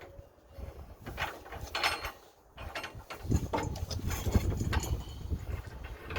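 Irregular mechanical clicking and clanking of hand tools on metal hardware, as bolts and nuts are fitted on a trailer stabilizer bracket.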